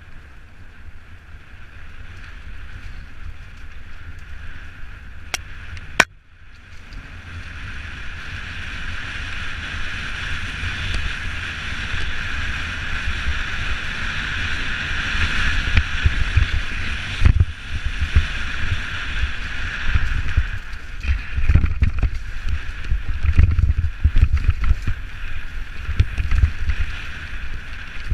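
Canyon Strive enduro mountain bike descending a rough dirt trail: a steady rush of wind and tyre noise with low rumbling, knocks and rattles from the bike over the ground. A sharp click comes about six seconds in, after which it grows louder and bumpier as speed builds.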